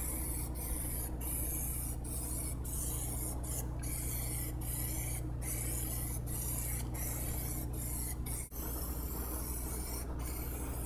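Plasti Dip aerosol spray can hissing as it lays a light first mist coat onto an alloy wheel. The hiss breaks off briefly about once a second between passes, over a steady low hum.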